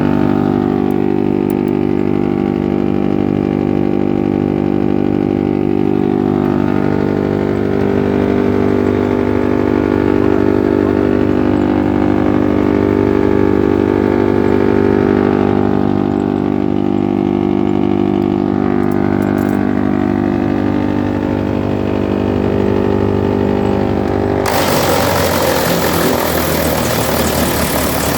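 Wood chipper machine running with a steady engine-like drone. Near the end the sound changes abruptly to a loud rushing noise.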